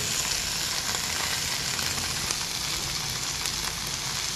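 Chopped vegetables and soaked moong dal frying in oil in a pan, a steady sizzle.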